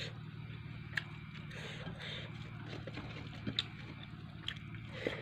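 Eating by hand: chewing and lip smacks with scattered clicks, and fingers mixing rice on a metal plate, over a steady low hum.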